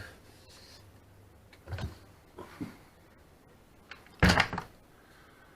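Handling sounds from a front-loading washing machine: two soft knocks, then a louder clunk about four seconds in.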